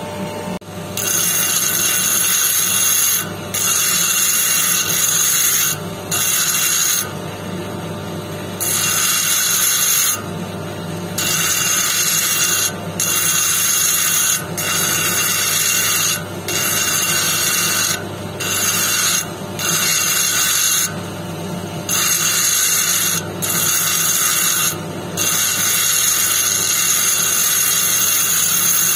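Jasper cabochon being polished on a spinning polishing wheel: a loud, high rubbing noise each time the stone is pressed to the wheel, in about a dozen stretches of one to two seconds with brief lifts between them, over the motor's steady hum.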